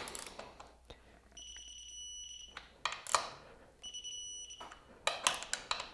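Digital torque wrench beeping twice, a steady high electronic tone about a second long each time, signalling that the triple-clamp pinch bolt has reached the set 15 Newton meters. Between and after the beeps come short runs of clicks from the wrench's ratchet head.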